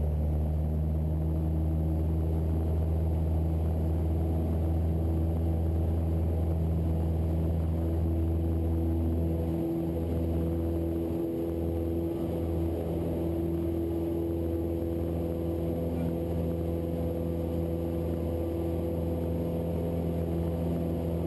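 Cessna 172's piston engine and propeller running at full power, heard from inside the cabin as a steady, even drone.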